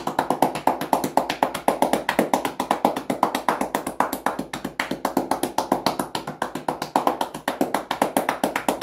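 Cupped hands patting rapidly on a horse's shoulder muscles (cupping, a tapotement or percussion massage stroke), a steady run of sharp pats at about eight a second.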